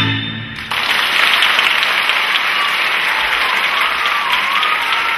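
Moldovan folk dance music ends on a last chord, and an audience breaks into steady applause under a second later.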